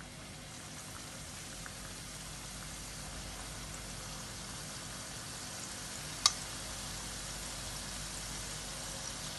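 Samosa-sheet-wrapped chicken skewers deep-frying in hot oil, a steady sizzle that slowly grows louder as they settle in. A single sharp click sounds a little after six seconds in.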